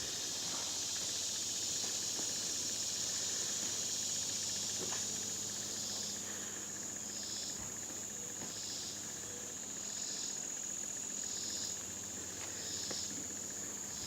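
Crickets trilling: one high, continuous trill throughout, joined about six seconds in by short chirps repeating a little more than once a second.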